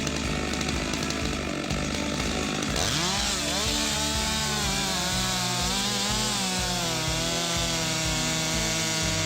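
Chainsaw running and cutting wood. From about three seconds in, its engine pitch wavers up and down as the chain loads in the cut.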